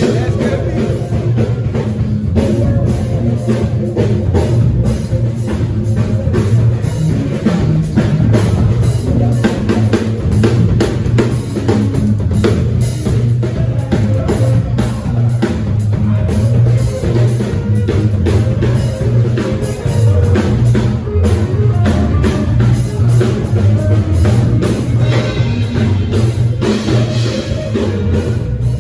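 Live band music led by a drummer on a full drum kit, dense steady beats over a heavy bass line, played as a sound check.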